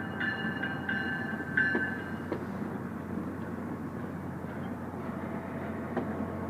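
MBTA commuter rail train pulling into the station, a steady low rumble with a hum underneath. In the first two seconds, high-pitched tones cut in and out several times.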